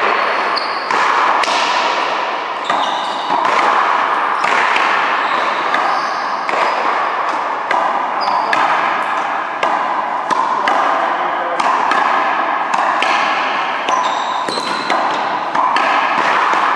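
One-wall racquetball rally: a string of sharp ball strikes off racquets, the front wall and the floor, roughly one a second, ringing with echo in a large hard-walled court. Short high squeaks come in between the hits.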